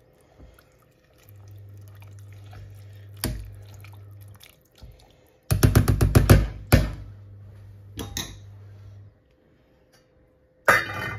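Spatula stirring peas and liquid in a stainless steel pot, with scattered clicks and, about halfway through, a quick run of about ten loud knocks of the spatula against the pot. A low steady hum sits underneath for much of the time.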